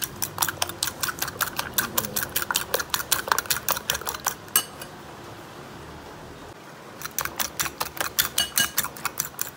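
Fork beating eggs in a glass bowl: a rapid run of clinks as the fork strikes the glass. The beating stops for about two seconds midway, then starts again.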